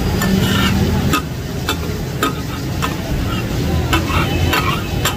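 Metal spatulas clanking against a flat iron griddle (tawa) in takatak cooking, with sharp, irregular strikes roughly every half second over a steady low rumble. The kidneys and testicles are simmering in liquid on the griddle.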